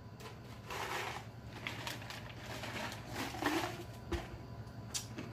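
A man breathing out heavily through the mouth, three long breaths spaced about a second or more apart.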